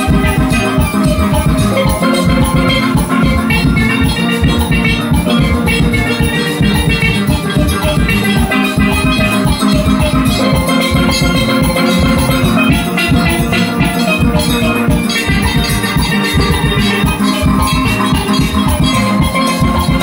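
Steel pan ensemble playing a tune, many pans sounding together over a steady drum beat.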